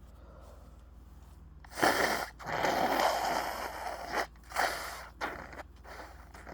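A person sneezing: a sudden loud burst about two seconds in, then over a second of noisy, breathy sound, followed by a few shorter bursts of breath.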